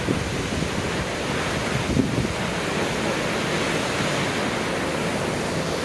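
High Force waterfall on the River Tees, its water gushing 21 metres down in a steady, even rush.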